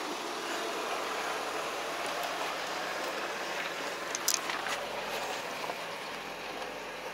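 Toyota Tacoma crawling slowly over a rocky off-road trail: a steady noise of tyres on rock and gravel, with a few sharp clicks of stones a little past four seconds in.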